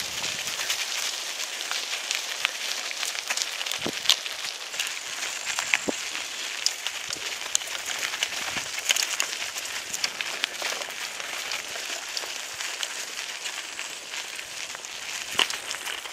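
Mountain bike rolling over a dry dirt trail littered with burnt leaves and palmetto debris: a steady crackling crunch of tyres on the litter, with scattered clicks and a few sharper knocks from the bike.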